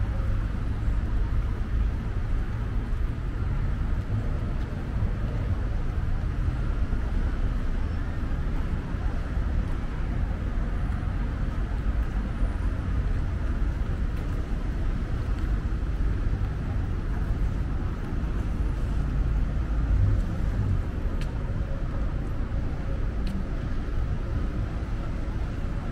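Steady city street ambience: a continuous low rumble of traffic and background noise, with no distinct events standing out.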